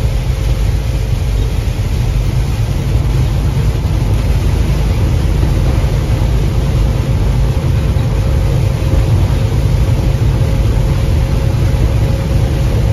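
Semi-truck at highway speed on a wet road, heard from inside the cab: a steady low engine drone mixed with tyre and spray noise, with a faint steady hum above it.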